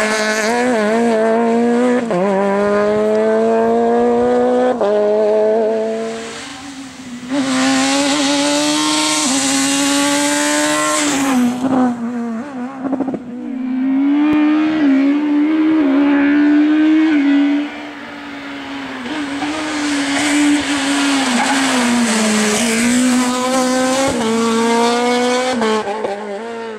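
Rally cars at full throttle going past one after another. Each engine revs up in steps through quick upshifts and fades as the car moves away, with a spell of loud hiss in the middle.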